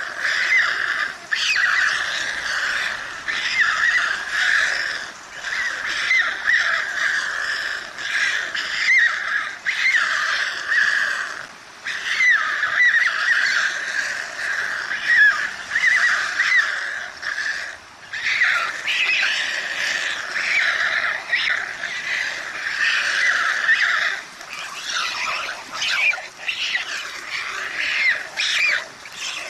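Young white storks begging for food at the nest: a near-continuous chorus of shrill, wavering calls, with a couple of short breaks.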